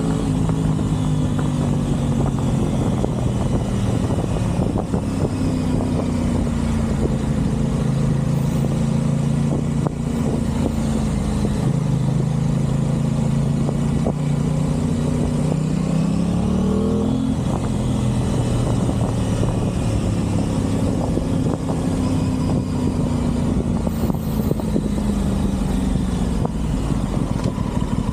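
Aprilia Tuono 660's parallel-twin engine running under way at fairly steady revs. A little past halfway the pitch climbs and then drops sharply at an upshift, before settling back to a steady note.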